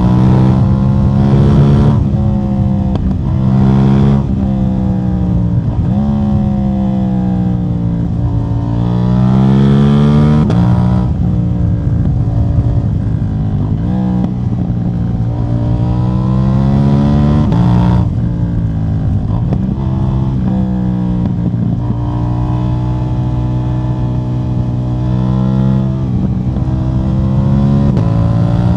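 KTM 790 Duke's parallel-twin engine, catalytic converter removed, running under load with its revs repeatedly climbing and falling, the pitch dropping abruptly several times.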